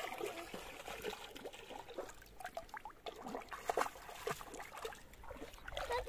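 Shallow, clear river water trickling over pebbles, with small irregular splashes as a hand and bare feet move in it.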